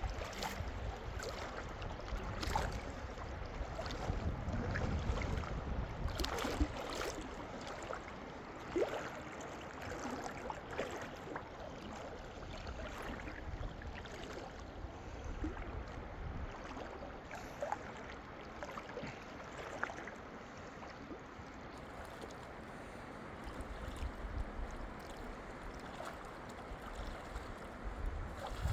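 Outdoor ambience of a steady rush of running water, with wind rumbling on the microphone at times and scattered light knocks and rustles.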